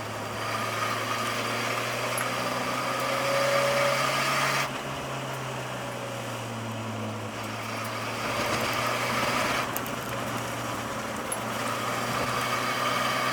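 Nissan S13 240SX engine and road noise heard from inside the car while driving at low speed, with a steady engine hum. The sound swells for a few seconds, drops sharply about four and a half seconds in, then builds up again near the end.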